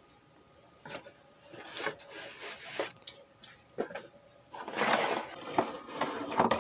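Packaging and parts being handled: rustling and crinkling with scattered clicks and knocks, thickest in a dense rustle about five seconds in.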